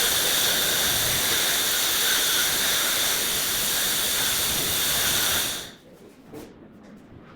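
Steady, loud hiss of pressurised gas rushing out, with a faint whistle in it, that cuts off abruptly about five and a half seconds in.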